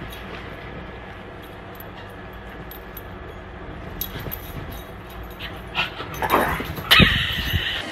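Small dog whimpering and yipping, the calls growing louder and higher in the last two seconds.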